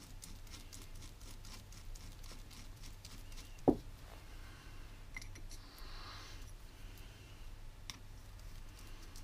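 Faint ticking and rustling of a gloved hand working oil into a differential carrier bearing, with one sharp knock a little over three and a half seconds in.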